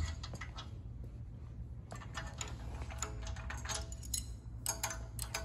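Light metallic clicks and clinks of wrenches, nuts and bolts being handled as nuts are started on the steering post mounting bolts. Some clinks ring briefly, and they come more often from about two seconds in.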